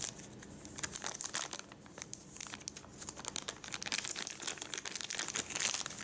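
Thin clear plastic bag crinkling as hands peel it back and slide a power bank out of it: a dense, irregular run of small crackles.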